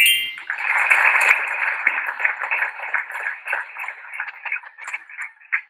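A quiz game's 'correct answer' sound effect: a short rising chime, then recorded applause that slowly fades and cuts off abruptly near the end. It is heard thin and narrow-band through a video call's audio.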